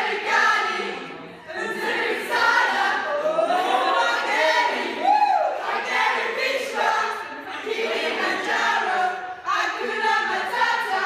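A group of young women singing together without accompaniment.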